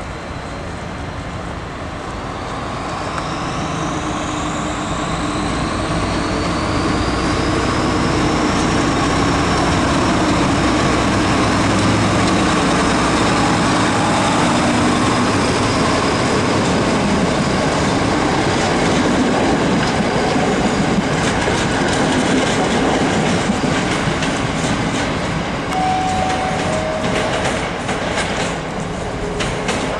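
A train running along a station track, growing louder over the first several seconds as a whine rises in pitch. In the second half its wheels click and clatter over the rail joints.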